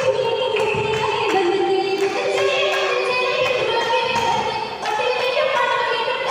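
A group of girls singing a Mappila oppana song in unison through microphones, on long held notes that glide between pitches.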